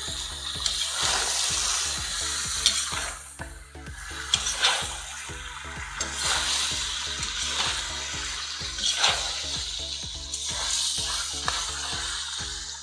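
Chicken fillet pieces sizzling in hot oil in a kazan while a long metal spoon stirs them, scraping and knocking against the pot again and again.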